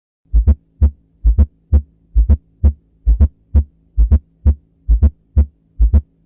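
Heart sounds heard on auscultation: a regular heartbeat a little under once a second. Each beat is a quick double thump followed by a single thump, with a faint steady hum underneath.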